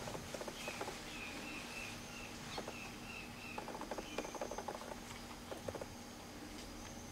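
Outdoor animal sounds: a run of about eight short, evenly spaced high chirps in the first half, with bouts of fast rattling, scratchy clicks, over a faint steady hum.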